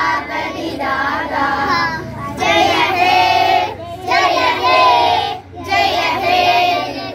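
A group of children singing together in unison, in phrases broken by short pauses for breath.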